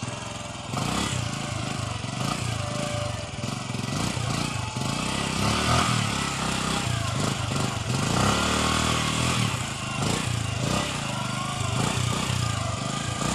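Small motorcycle engine running, its pitch rising and falling about eight seconds in as the throttle is worked on muddy ground.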